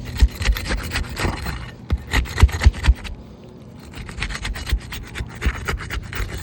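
Asphalt shingle being pried loose from its sealant strip: irregular scraping and rasping of a tool worked under the tab, with sharp knocks and pops as the glued bond breaks, loudest about two to three seconds in.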